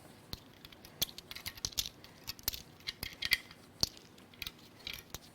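Irregular sharp clicks and light metallic clinks of small steel engine parts, loose valve lifters and cam hardware, being picked up and set down.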